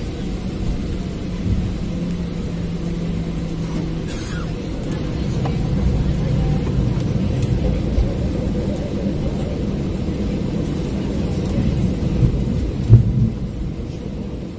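Steady low cabin rumble of a Boeing 737-800 airliner taxiing, engines and wheels on the wet taxiway, as it turns onto the runway. A few bumps come near the end, one sharp thump about thirteen seconds in.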